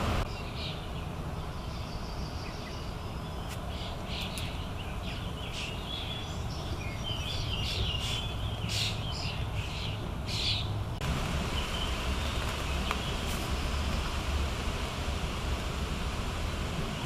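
Many short wild bird calls and chirps over a steady low rumble. The calls stop abruptly about two-thirds of the way through, where the background changes, and only a few faint calls remain after that.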